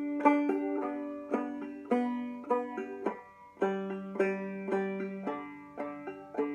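Five-string banjo played clawhammer style in a slow practice exercise. The ring finger strikes down on the melody strings and the thumb answers on the fifth string, in a down-down-up pattern of about two to three plucked, ringing notes a second.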